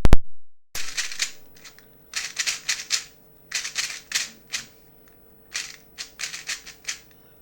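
Rubik's speedcube being turned fast through the H-perm algorithm: flurries of quick plastic clicks and clacks as the layers snap round, about five short bursts with brief pauses between them.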